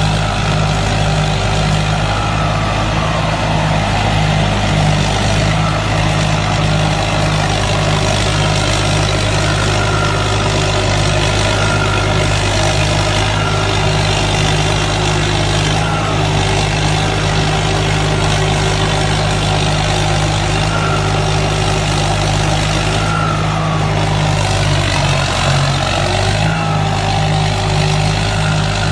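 Rice combine harvester's engine running steadily at high load, with a faint wavering whine above it; the low engine note dips briefly about 25 seconds in.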